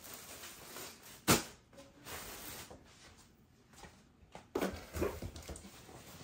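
A single sharp knock about a second in, then softer thumps and shuffling of footsteps in slides on a carpeted floor near the end.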